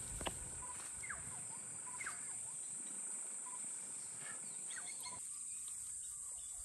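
Outdoor ambience of a steady high-pitched insect drone, with a bird repeating a short falling chirp several times.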